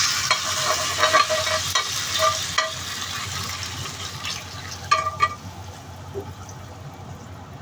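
Pork chop, carrot and baby corn stir-frying in a pan: a sizzle that dies down, with a metal spatula clinking and scraping against the pan several times, a last group of clinks about five seconds in.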